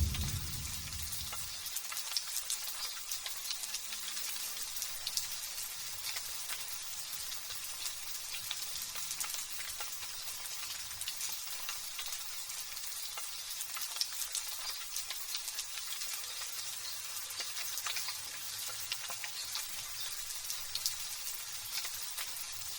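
Light drizzle pattering: a steady fine crackling hiss of many small raindrops. A low thunder rumble dies away in the first second or two.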